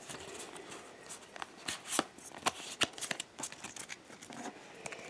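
A stack of Pokémon trading cards being handled and shuffled by hand, making quick irregular snaps and soft slides of card stock.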